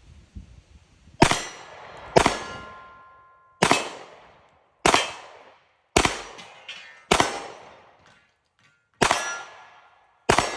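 Eight pistol shots from a Shield in .45 ACP, fired one at a time about a second apart with a longer pause before the last two. Several shots are followed by a brief metallic ring from steel pepper poppers and plates being hit.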